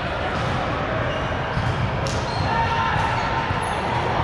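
Ball bouncing and smacking on a hard gym floor, with voices chattering and echoing in a large hall; sharp hits come about two and three seconds in.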